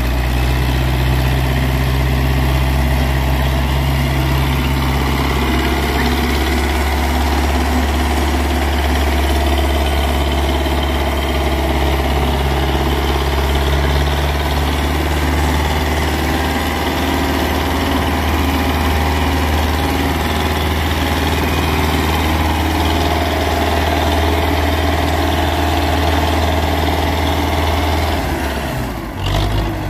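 Tractor's diesel engine running steadily with a deep, even drone, dropping away shortly before the end.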